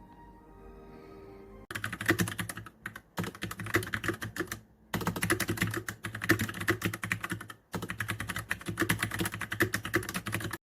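Fast typing on a mechanical keyboard: a dense clatter of key clicks in four runs with brief pauses between them, cutting off suddenly near the end. Soft music plays for the first couple of seconds before the typing starts.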